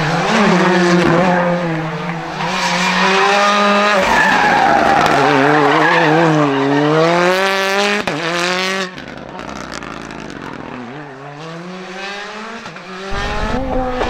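Rally car engines revving hard, the pitch climbing and dropping with throttle and gear changes. The sound drops abruptly about nine seconds in to a quieter engine note, then jumps back up near the end.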